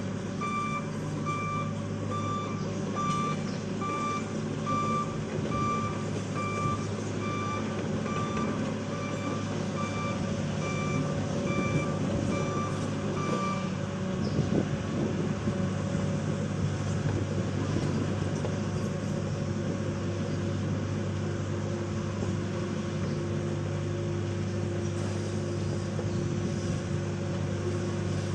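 Bulldozer's diesel engine running steadily while its reverse alarm beeps, a bit over once a second, as the machine backs up. The beeping stops about halfway through and the engine keeps running.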